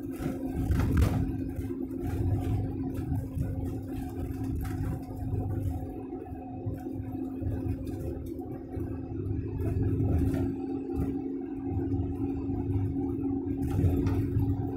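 Delivery truck's engine and tyres at steady highway cruising speed, heard inside the cab: a constant drone over a low road rumble that swells and fades, with a few brief knocks.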